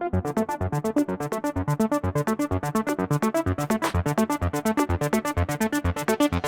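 Background electronic music with a fast, steady beat.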